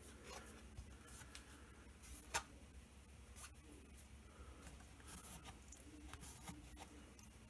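Faint tabletop handling noises as a clock face is moved about: light rustles and scattered small clicks, with one sharper click about two and a half seconds in.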